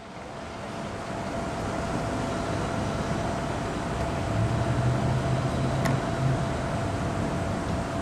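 Outdoor downtown street noise fading in over the first second or two: a steady rumble of traffic, with a deeper engine hum swelling in the middle.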